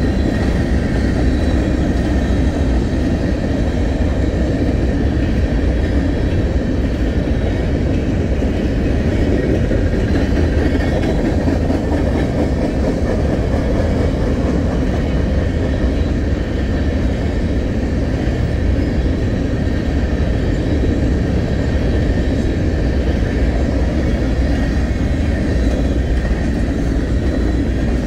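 A long freight train of empty open-top trash gondolas rolling steadily past, its steel wheels rumbling on the rails. A faint, steady high ring sits over the rumble.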